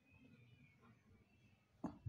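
Near silence: room tone, with one brief sharp click near the end.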